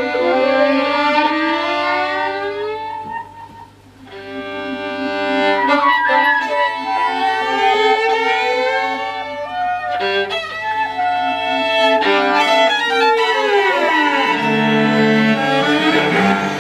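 Instrumental music: many overlapping tones sliding up and down in pitch over a steady low drone, with a brief dip in loudness about three to four seconds in.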